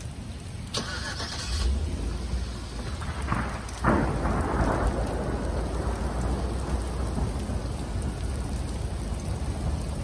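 Thunderstorm: steady rain with thunder. There is a short crackle about a second in, then a sharp clap about four seconds in that rolls on into a long, low rumble.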